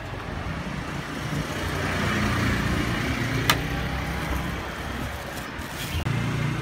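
Steady street traffic rumble from passing vehicles, swelling about two seconds in, with a single sharp click about halfway through.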